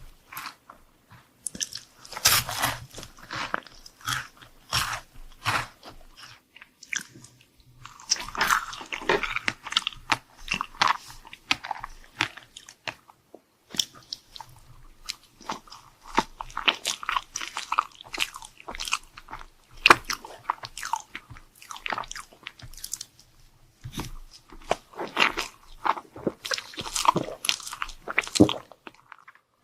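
Close-miked eating of chocolate desserts: repeated crisp bites and crunchy chewing in irregular bursts, with a couple of short pauses.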